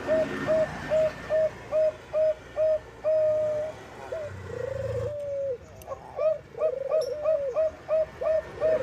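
Bangkok-strain zebra dove (perkutut) cooing: a fast run of short, clipped coos, about three a second, broken in the middle by a longer drawn-out coo and a falling, trilled phrase, then the quick coos start again.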